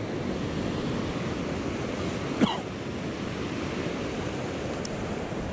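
River North Esk rushing over rapids: a steady rush of water. A single brief, sharp sound cuts in about halfway through.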